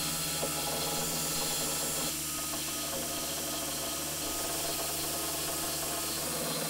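Belt grinder running with a coarse 40-grit sanding belt, the steel of an axe head pressed against it and grinding steadily over a constant motor hum. The grinding noise changes slightly about two seconds in.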